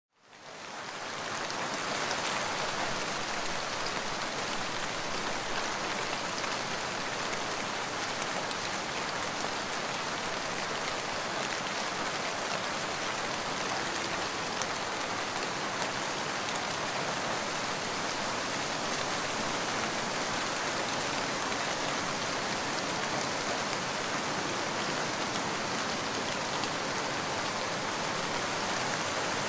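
Steady rain falling, an even wash of drops that fades in over the first two seconds.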